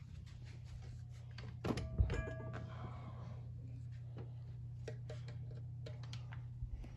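Light clicks and knocks of small objects being handled and set down on a wooden nightstand, with a thump about two seconds in and a brief high tone just after, over a steady low hum.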